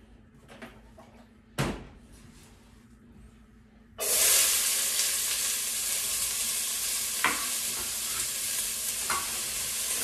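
Diced onion hitting hot olive oil in a stainless steel pot: a loud sizzle starts suddenly about four seconds in and goes on steadily, with a few light knocks of the utensil against the pan as the onion is stirred. Before it, a single sharp knock.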